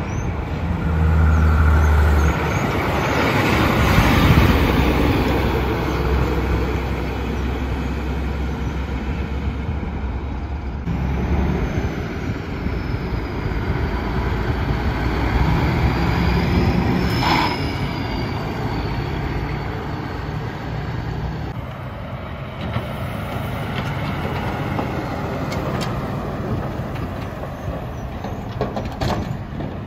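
Diesel semi trucks driving past one after another, their engines running as they pull by. Three separate passes with abrupt changes between them, the first the loudest.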